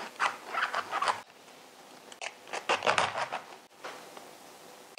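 Chef's knife cutting down into the top of a raw head of green cabbage with repeated short strokes, scoring a square around the core. The strokes come in two runs of about a second each, one at the start and one about two seconds in.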